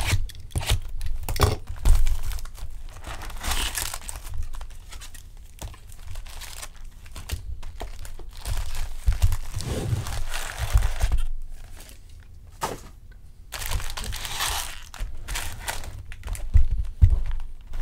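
Plastic wrapping on a jumbo box of baseball card packs crinkling and tearing as it is opened. It comes in irregular spells, with a few dull knocks of handling in between.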